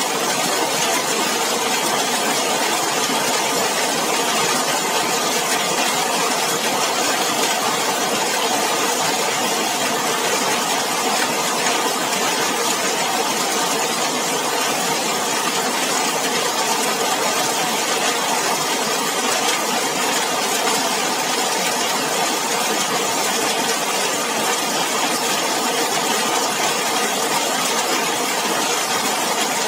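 Heavy rain falling on a zinc roof: a dense, even, unbroken patter with no let-up.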